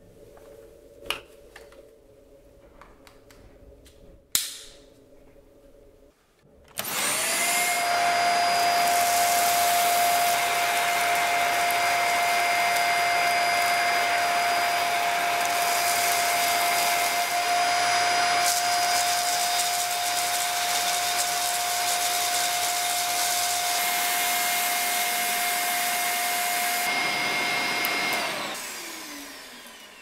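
Two sharp clicks, then a Dyson Small Ball upright vacuum cleaner's motor starts suddenly and runs steadily with a high whine under the rush of air. Near the end the motor is switched off and winds down, its whine falling in pitch.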